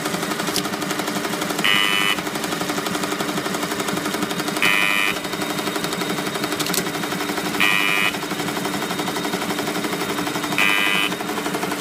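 Automatic single-straw film/paper packing machine running at high speed: a rapid, continuous mechanical clatter over a steady hum, with a brief higher-pitched burst about every three seconds.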